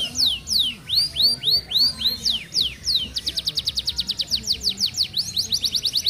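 Canary (F1 canary) singing a fast, tightly packed rolling song: quick downward-sweeping notes and runs of rapid trills at about ten notes a second, alternating with slower arched whistles.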